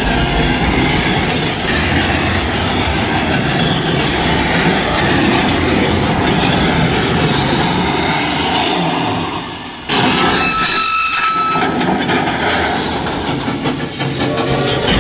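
Train sound effects from a dark ride's sound system, synced to a projected freight train rushing past: a continuous loud rumble of wheels and cars. It fades about nine seconds in, comes back suddenly, and a high pitched whistle-like tone sounds for about a second and a half.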